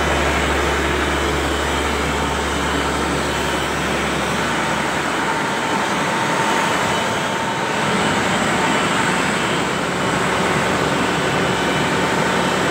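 Engine of a mobile boat lift (travel lift) running steadily, a loud, even machinery drone. A deep hum under it drops away about four and a half seconds in.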